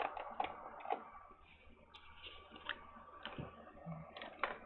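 Faint, scattered clicks and taps of small objects being handled on a workbench as a solder paste container is picked up and opened.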